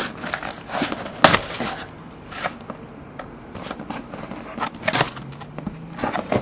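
Cardboard shipping case being handled and opened: scattered clicks, scrapes and rustles of the cardboard and of the shrink-wrapped boxes inside, with one louder knock about a second in.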